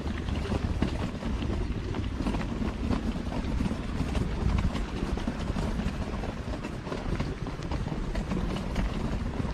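Footsteps crunching on a packed dirt and gravel trail at a walking pace, as a series of short uneven crunches, over a steady low rumble on the microphone.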